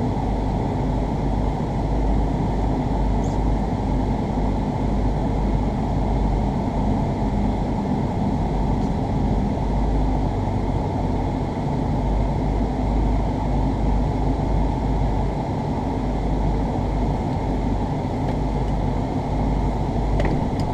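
Steady low vehicle rumble that holds at an even level throughout, with no clear rise or fall in pitch.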